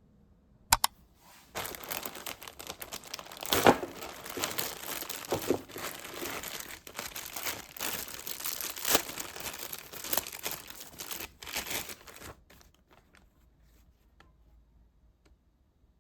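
Crinkling and crumpling handling noise, like a thin material being scrunched, starting just after a sharp click about a second in and stopping about twelve seconds in.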